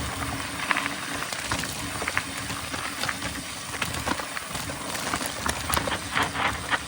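Mountain bike riding along a trail: a steady rushing of tyres and wind with scattered clicks and rattles from the bike.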